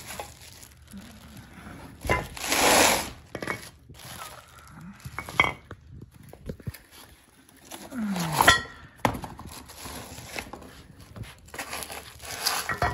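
Steel parts of a shrink-wrapped hex bar being unpacked and handled: plastic wrap and cardboard rustling, with metal pieces clinking and knocking against each other several times, the loudest clank with a short ring about eight seconds in.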